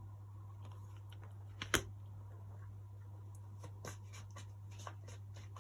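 Faint, scattered clicks and taps of cards being handled and drawn from a deck, with one sharper click a little under two seconds in, over a steady low hum.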